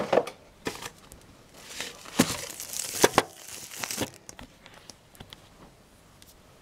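Packaging crinkling and rustling as it is handled and pulled off a cordless phone base, with a few sharp clicks in the middle; it dies down near the end.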